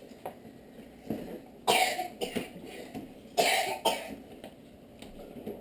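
A person coughing twice, two short harsh coughs about a second and a half apart.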